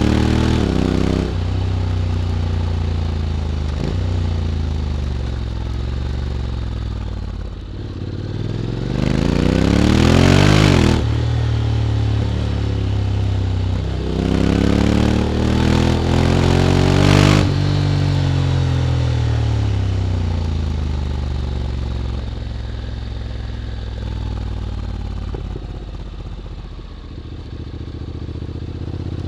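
2022 Honda X-ADV 750's parallel-twin engine through an SC-Project titanium slip-on exhaust, pulling hard three times with the pitch climbing and dropping suddenly at each shift, then settling lower as the bike slows.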